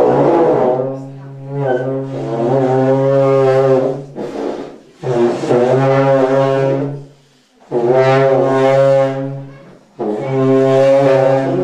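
Tibetan long horns (dungchen) played in a series of long, low, sustained blasts, each two or three seconds long with short breaks between them.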